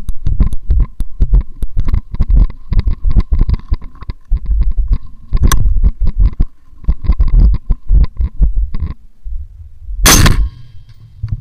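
Irregular low thumps and clicks on the microphone, then about ten seconds in a single loud shot from an AERO M4A1 rifle in 5.56.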